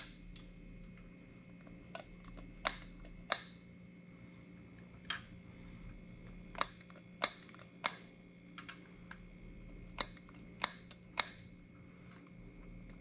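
Hand pump oil can clicking as its trigger is worked, squirting oil down the pushrod holes of an engine being assembled: about a dozen sharp clicks at irregular intervals, over a faint steady hum.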